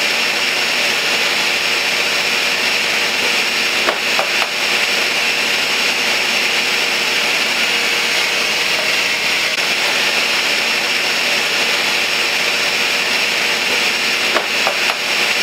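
Countertop blender running steadily, blending a thick protein shake.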